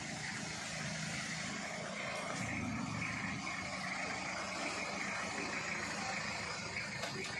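Willys jeep engine idling steadily, a little louder from about two seconds in.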